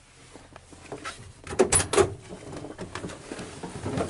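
Fire engine cab door opening and someone climbing down out of the cab: a run of knocks and clatter, with the loudest bangs about a second and a half to two seconds in.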